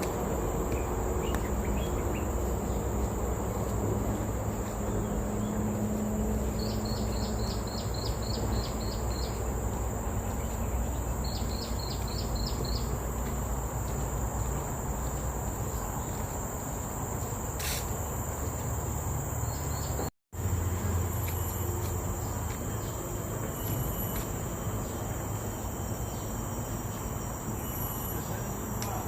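Forest insects keeping up a steady high-pitched drone, with two runs of rapid ticking chirps in the first half, over a low rumble. The sound cuts out for a moment about two-thirds of the way through.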